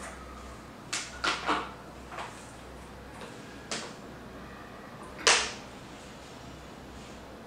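Plastic bottle handling: a few light clicks and taps as a cooking-oil bottle's cap comes off and the bottle is tipped over another bottle's neck to pour. One sharper, louder click comes about five seconds in.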